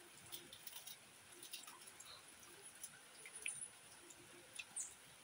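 Faint, crisp snapping and tearing of pak choy (bok choy) stems and leaves broken apart by hand over a frying pan: scattered small clicks and crackles, with a couple of brief high squeaks.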